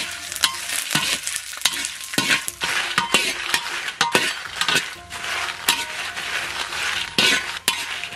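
Dried chilies sizzling in a little hot oil in a wok while a spatula stirs them, scraping and knocking against the wok again and again. This is the frying step of making knife-cut chili.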